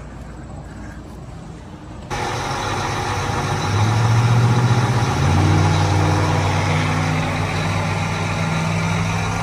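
Quiet outdoor background for about two seconds, then a John Deere tractor's diesel engine running steadily, heard from inside the cab, its low hum swelling a little around the middle.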